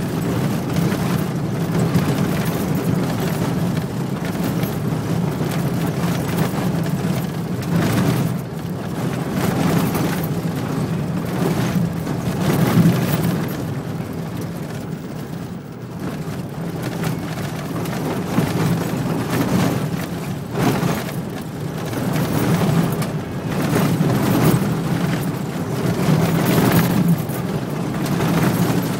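Vehicle driving on an unpaved red dirt road: a steady low rumble of engine, tyres and wind that swells and dips in loudness.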